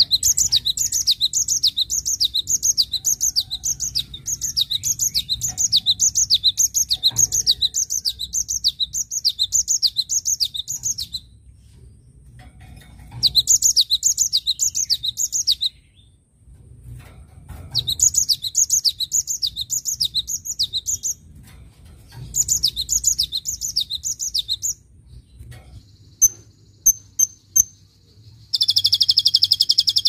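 Cinereous tit singing: long runs of quick, high repeated notes, two to three a second, broken by short pauses, over a faint low hum. A few sharp single notes come near the end, and then a denser, faster song of another bird cuts in.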